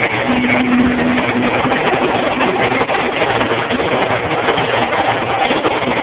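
Live amplified band playing loud, overdriven by the camera's microphone into a dense, unbroken wash of sound, with one held note in the first second or so.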